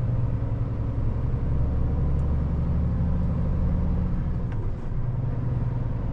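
Scania truck engine droning steadily with road noise, heard from inside the cab while driving; the engine note shifts a little about two and a half and four and a half seconds in.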